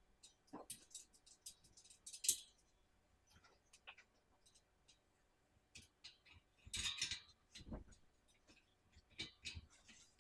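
Scattered light clicks and knocks of plant-stand parts being handled and fitted together, with a brief louder rustle about two seconds in and a cluster of louder knocks near the seven-second mark.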